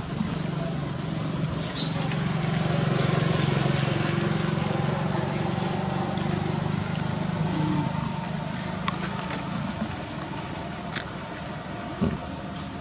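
A steady low engine-like hum that swells over the first couple of seconds and eases off after about eight, with a few short sharp clicks scattered through it.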